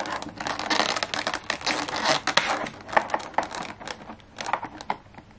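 Plastic packaging being handled, crinkling with many small clicks and scratches, quieter near the end.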